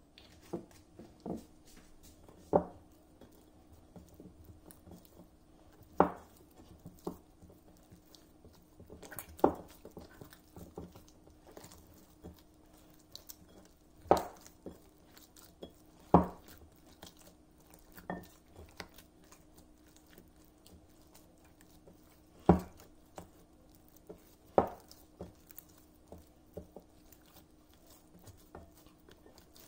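Hands kneading soft, oiled bread dough in a glass bowl: quiet squishing and pressing, with a sharp knock or slap every few seconds, about seven loud ones in all.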